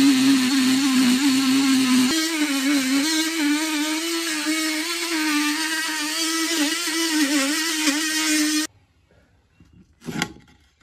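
Makita 18V cordless oscillating multi-tool cutting through the wall board with a loud, steady buzz whose pitch wavers as the blade is pressed into the cut. Near the end it cuts off abruptly, and a single short knock follows.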